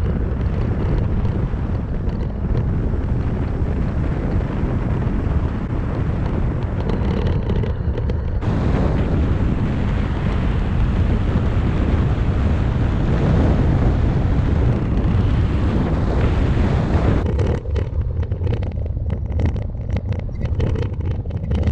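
Loud wind rumbling and buffeting on the microphone, changing abruptly about eight seconds in and again near seventeen seconds, after which it comes in gusts.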